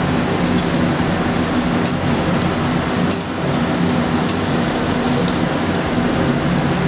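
Sliced onions deep-frying in hot oil in a steel kadai, sizzling steadily as they turn golden brown, with a few sharp ticks scattered through.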